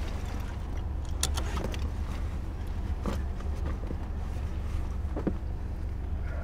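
Steady low rumble of an idling car heard inside the cabin, with rustling and a few sharp clicks as a bag and clothes are handled on the back seat.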